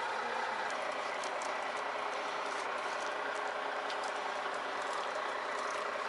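Steady hum and hiss of idling vehicle engines and traffic, with a few faint clicks.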